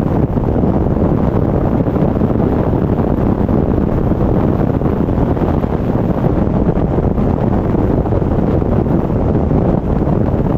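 Wind buffeting a camera mounted on the roof of a car at highway speed: a loud, steady, low rumble with no engine note.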